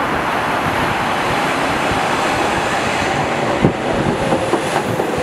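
Budd 2600-series CTA 'L' rapid-transit train pulling into the station, with a steady running rumble from the cars. A faint whine falls in pitch as the train slows. From about three and a half seconds in, the wheels click over the rail joints as the cars pass close by.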